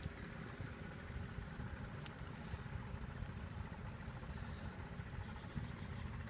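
Steady high-pitched insect drone over a low, irregular rumble, with a faint click about two seconds in.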